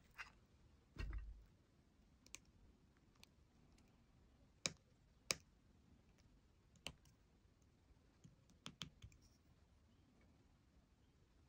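Craft knife cutting small chips from a hard, dried avocado seed: sparse, irregular sharp clicks, about ten in all. There is a soft low thump about a second in.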